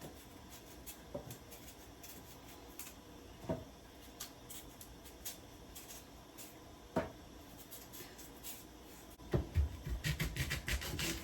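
Knife peeling the skin off a sweet potato: faint scraping with small scattered clicks, then louder knocks and handling noise in the last two seconds.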